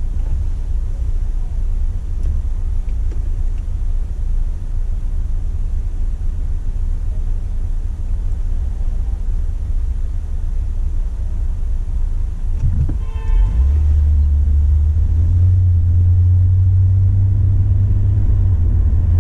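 Low rumble of a vehicle's engine and road noise heard from inside the driver's cab while driving. About 13 seconds in a brief pitched tone sounds, and the low rumble then grows louder and steadier.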